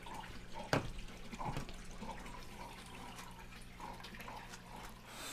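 Water trickling and dripping at an aquarium, over a steady low hum, with a sharp knock about a second in and a few softer taps as parts are handled.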